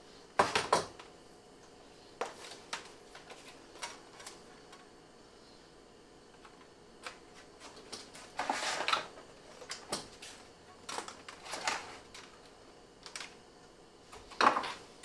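A computer keyboard being handled on a workbench: scattered plastic clicks and knocks, with short rustles.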